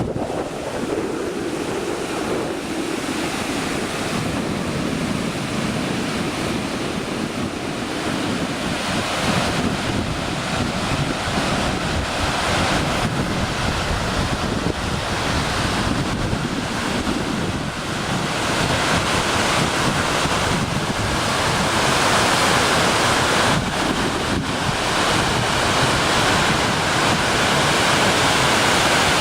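Waterfall: a steady rush of falling water that grows louder about three-quarters of the way in.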